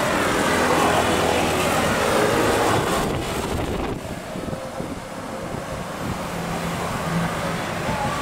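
Strong wind rushing over the microphone with a steady low rumble, easing slightly about four seconds in.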